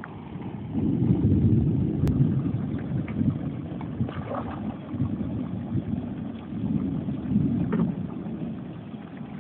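Wind buffeting the microphone as an uneven, gusting low rumble, with a few faint splashes as red arowana break the surface of the pond.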